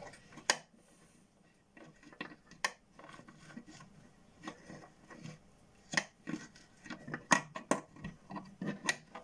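Scattered light clicks and knocks with some rubbing: hands and the camera handling a wooden box close to the microphone. The sharpest clicks come in the last three seconds.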